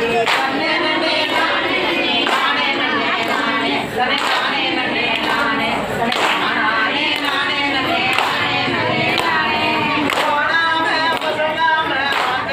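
Group of women singing a Tamil mulaipari folk song together, the song sung when the sprouted-grain pots are taken for immersion, with handclaps in time.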